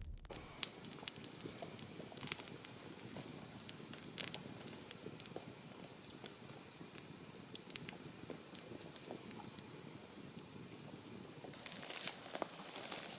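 Campfire crackling, with scattered sharp pops and snaps at uneven intervals. A faint high, evenly pulsed chirping runs underneath through most of it.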